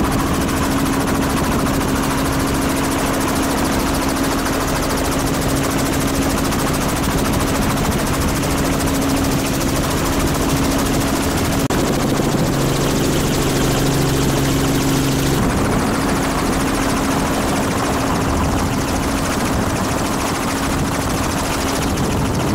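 Helicopter rotor and engine running steadily, heard from on board: a loud, continuous drone with a low hum that shifts slightly in tone about halfway through.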